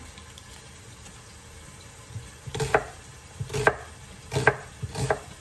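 Large chef's knife chopping an onion on a wooden cutting board. After a quiet first couple of seconds come four sharp knocks of the blade striking the board, about one a second.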